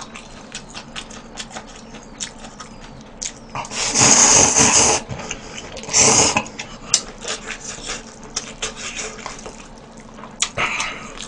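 A person slurping instant ramen noodles from a bowl: two loud slurps, a long one about four seconds in and a shorter one about six seconds in, with small wet clicks of chewing between.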